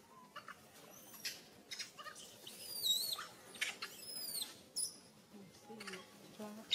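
Short, high-pitched animal chirps and whistles that glide up and down, several in quick succession, with scattered clicks and rustles.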